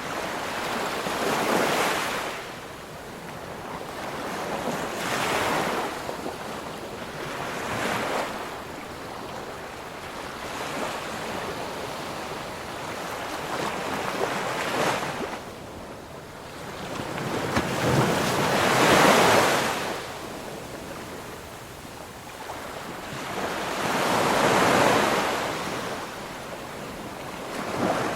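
Ocean waves breaking on the shore, each one swelling into a rush of surf and then washing back, about every three to six seconds; the break near the middle is the loudest.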